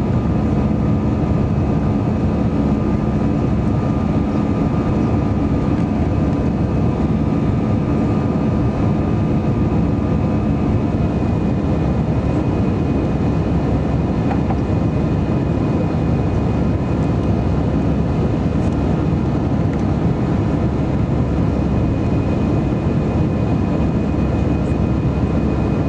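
Steady cabin noise of an Airbus A320-214 climbing after takeoff: the roar of its CFM56 turbofans and the airflow, heard from a seat over the wing. A low hum fades about eleven seconds in.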